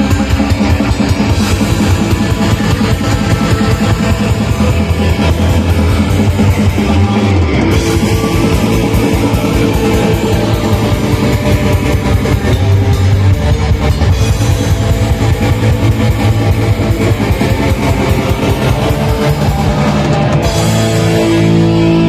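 Metal band playing live: distorted electric guitars over fast, dense drumming. About twenty seconds in the drumming stops and a held chord rings out as the song ends.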